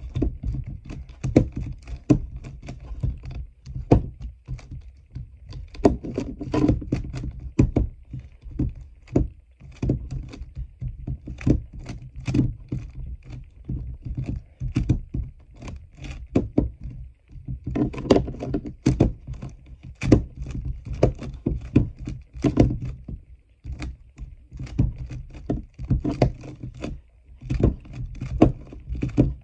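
A 3x3 speedcube turned rapidly one-handed: the plastic layers click and clack in quick, irregular runs with short pauses, mixed with dull thunks.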